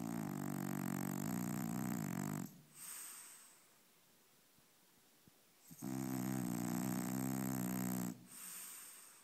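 French bulldog snoring in its sleep: two long snores of about two and a half seconds each, the second starting about six seconds in, each followed by a shorter, softer breath.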